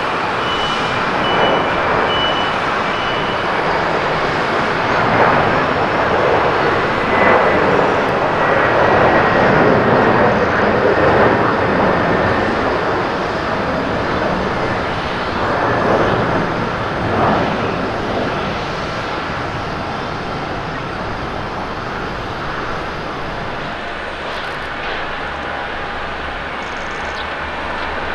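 Boeing 767-300(ER) jet engines at takeoff thrust as the airliner lifts off and climbs away, a steady rushing rumble that swells and then slowly fades. About four-fifths of the way through it gives way to a quieter, steadier jet sound from another airliner on approach.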